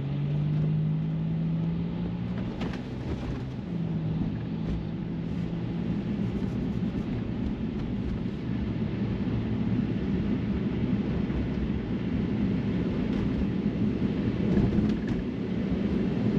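Road and tyre noise inside a Tesla's cabin while driving, with a steady low hum during the first couple of seconds and again briefly a little later.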